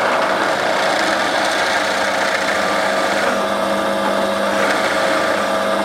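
Drill press running steadily while its bit bores a hole into a small wooden block held in a jig: a constant motor hum mixed with the noise of the bit cutting wood.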